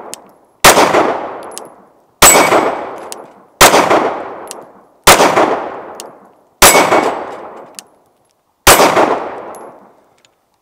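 Six 9mm pistol shots from a Glock 19, fired slowly about a second and a half apart, each with a long echo off the surrounding rock walls. About half a second after most shots comes a faint ping of the bullet striking a steel target.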